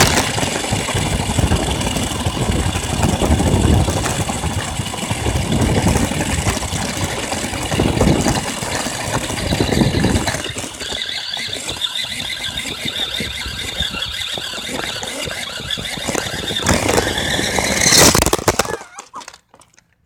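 Battery-powered remote control car driving fast over a rough road, heard from a phone riding on its front: a steady high motor whine over the rumble and crunch of the wheels, rougher and louder for the first ten seconds. Near the end comes a loud clatter as the car goes out of control and tips over, then the sound drops away.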